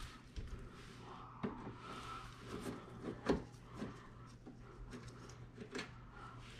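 Scattered light knocks and clicks of tools and dishwasher parts being handled, the loudest knock a little past three seconds in, over a low steady hum.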